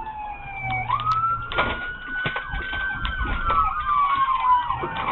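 Police sirens wailing: one slides slowly down in pitch, sweeps back up about a second in and falls slowly again, while a second siren's fast yelp joins it near the end.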